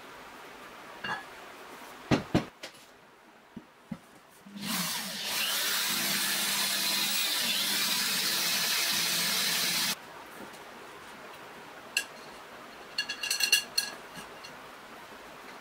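Cordless drill boring a hole through the bottom of a stainless steel pot: a steady run of about five seconds that stops abruptly. A few ringing metallic clinks follow as the pot is handled.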